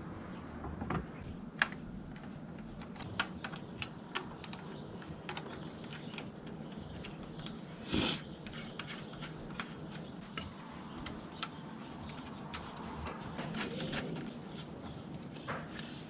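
Irregular sharp metallic clicks and clinks of hand tools and exhaust fittings being handled, with a louder clatter about halfway through, over a low steady background hum.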